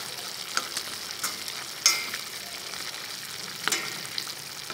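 Pig liver and onion stir-fry sizzling in a metal pan while being turned with wooden chopsticks, which clack against the pan several times. The loudest knock, about two seconds in, leaves the pan ringing briefly.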